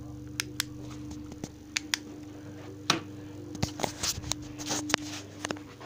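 Handling noise from a phone being moved around: scattered sharp clicks and taps with short bursts of rubbing on the microphone, busier after the first second or so, over a steady low hum.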